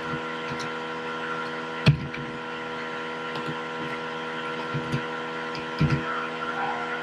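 Computer keyboard keys being typed: a few scattered taps, the sharpest about two seconds in, over a steady background hum.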